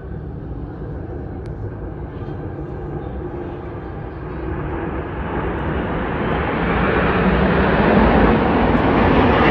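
Engine noise of military aircraft flying past in formation, a steady noise that grows clearly louder from about four seconds in as the formation approaches.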